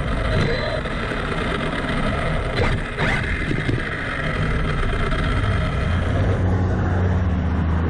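Road traffic heard from a camera at road level: car engines and tyres rumbling past, with a short rising whine about three seconds in and a steady low hum near the end.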